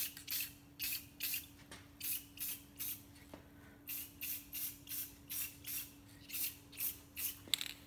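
Aerosol spray-paint can sprayed in short hissing spurts, about three a second, with a brief pause about three seconds in.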